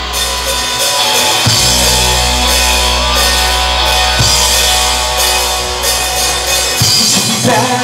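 Live rock band through amplifiers: electric guitars and drum kit playing an instrumental passage over a held low note, which breaks with a drum hit about a second and a half in and stops with another near the end.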